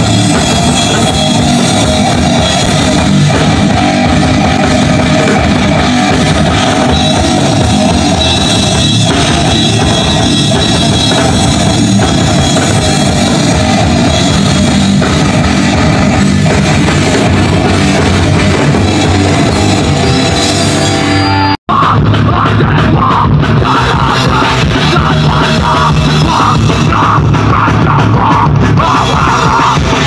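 Loud punk rock music with drum kit and electric guitar playing. About three-quarters of the way through it drops out for an instant and cuts to another passage.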